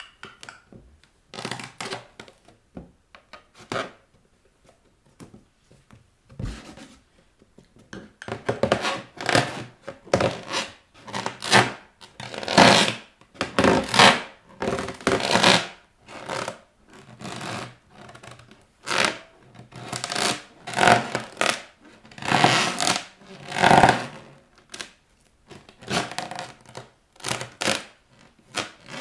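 Bare feet pressing and rubbing against inflated rubber balloons, making a run of short rubbery squeaks and rubs. These come sparsely at first and then close together from about eight seconds in.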